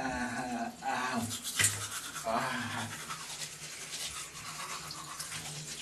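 Toothbrush scrubbing teeth, a fast rasping from about a second and a half in. A man's wordless voice sounds several times over it.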